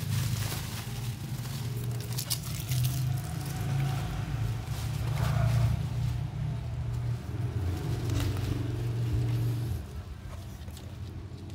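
A steady low hum runs under the handling and fades about ten seconds in. Near the start a plastic bubble mailer crinkles briefly as it is handled.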